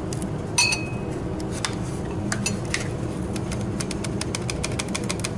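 Light clinks and taps of glassware as the unknown powder is tapped into a glass test tube, with one brighter ringing clink about half a second in and a quick run of small taps near the end, over a steady low hum.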